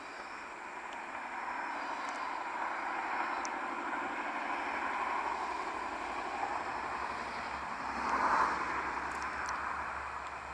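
A vehicle running: a steady rushing noise that slowly grows louder, peaks about eight seconds in, then eases off, with a few faint clicks.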